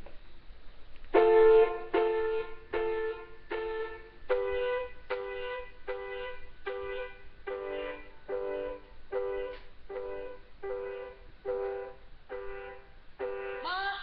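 Instrumental song intro: a steady run of struck chords, about one every 0.8 seconds, starting about a second in.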